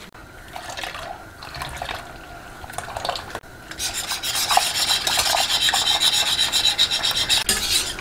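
A wire whisk beating flour and water into a thin paste in a ceramic bowl, in repeated rubbing strokes. About four seconds in the paste is poured into a pot of water and stirred, and the sound turns louder and steadier.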